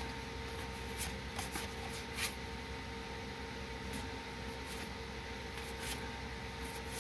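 Foil Magic: The Gathering cards handled and flipped through one at a time, the cards sliding and flicking against each other in a few short, scattered ticks.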